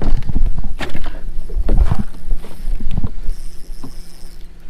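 Knocks and bumps of people moving about on a bass boat, heaviest in the first two seconds, over a low steady hum.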